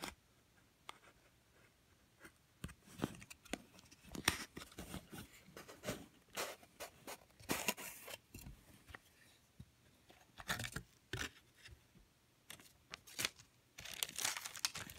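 A knife cutting and scraping through the paper seal on a wooden cigar box, in short irregular scratches and clicks, then the sliding wooden lid being worked open. Near the end, a sheet of paper inside the box crinkles.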